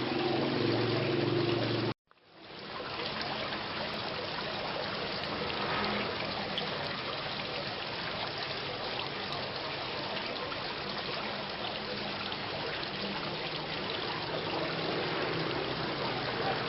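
Steady rain, an even wash of falling water. About two seconds in it cuts out suddenly and fades back in over half a second.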